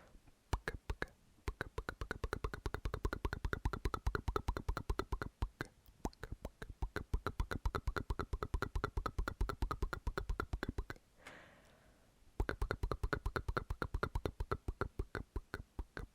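Close-miked ASMR "pk-pk" mouth sounds: rapid lip-and-tongue pops, several a second. They break off about eleven seconds in for a short breath, then start again.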